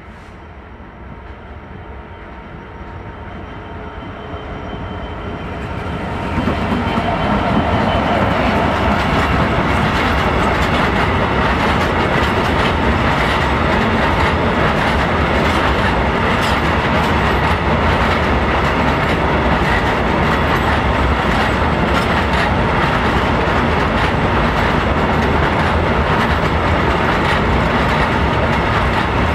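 Class 66 diesel freight locomotive approaching and passing, growing steadily louder over the first six seconds or so. Then a long train of bogie hopper wagons rolls past at a steady speed, wheels clacking over the rail joints.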